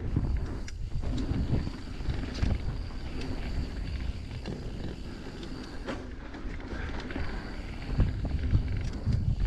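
Mountain bike riding down a dirt singletrack: a low rumble of wind and ride noise on the bike-mounted microphone, tyre noise on dirt, and scattered knocks and rattles of the bike over bumps, a couple louder near the end.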